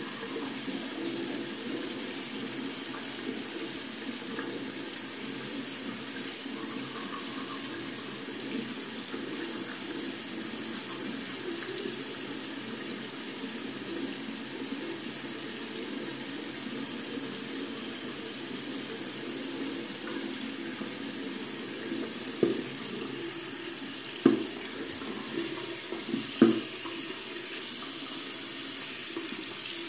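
Bathroom faucet running steadily into a sink basin. A few sharp knocks stand out in the last several seconds.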